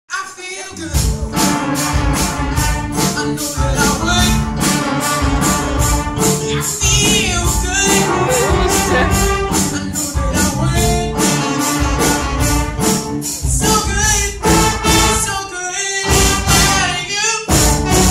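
Live school band with a trumpet and horn section playing an up-tempo soul number on a steady beat, with a young male singer on microphone. The band breaks off for a moment near the end and then comes straight back in.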